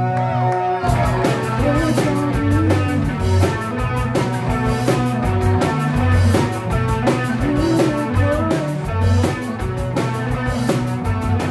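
Rock band playing live: electric guitar and bass, with the drum kit coming in about a second in and keeping a steady beat with cymbals.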